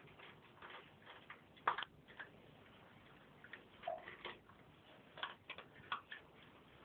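Two cats eating from one shared food bowl: irregular small clicks and crunches of chewing and of food knocking in the bowl, a few each second.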